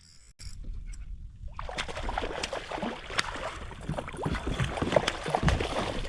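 After a near-silent first second and a half, close water splashing and sloshing with many small sharp splashes: a hooked sea trout thrashing at the surface beside the kayak.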